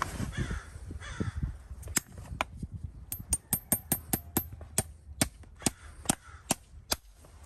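Farrier's driving hammer tapping horseshoe nails into a horse's hoof: a series of sharp metallic taps with a slight ring, coming quickly, about four or five a second, near the middle and more slowly after.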